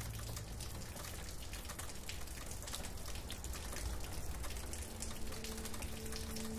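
Steady rain falling, a dense patter of many small drops. A soft, low sustained music tone comes in about five seconds in.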